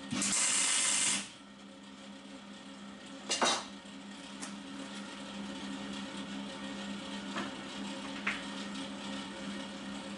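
Welding torch giving a hissing burst about a second long, followed a few seconds later by a brief metallic knock on the steel frame, over a steady low electrical hum.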